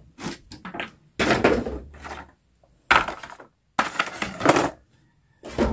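Clear plastic blister packaging crackling and clattering as a toy bus is handled and taken out of it, in four or five separate bursts with short gaps between them.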